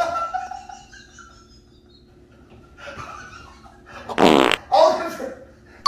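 A loud, buzzy fart sound about four seconds in, lasting about half a second, followed by a brief laugh.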